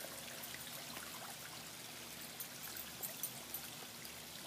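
Swimming-pool water trickling and lapping, with small splashes from a swimmer moving through it, a few sharper ones about three seconds in.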